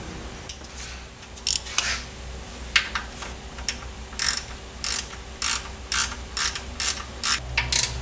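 Hand ratchet wrench clicking: about a dozen sharp clicks, irregular at first, then about two a second in the second half.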